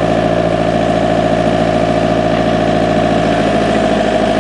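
Backhoe's diesel engine running steadily at a low, even speed.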